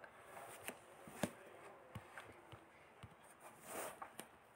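Quiet room tone with a few faint, scattered clicks and one soft rustle near the end.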